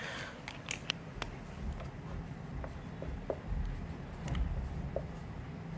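Marker pen writing on a whiteboard: faint scattered ticks and scrapes over a low steady room hum.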